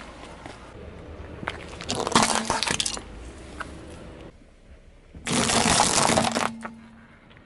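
Car tyre rolling over and crushing small brittle objects on pavement: a burst of crunching and cracking about two seconds in, then a longer, denser crunch about five seconds in.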